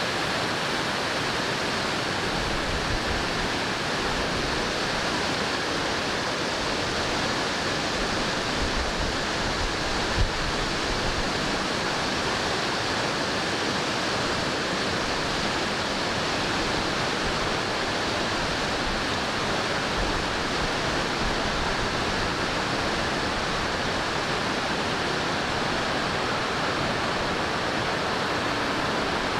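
Waterfall rushing steadily, with a few brief low rumbles underneath.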